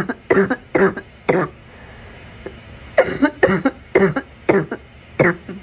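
A person with a harsh, barking cough from illness coughing in two fits: about four quick coughs, a pause of over a second, then about seven more.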